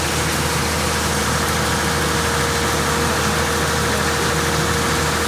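An engine running steadily at idle, with a steady droning tone over a constant mechanical noise.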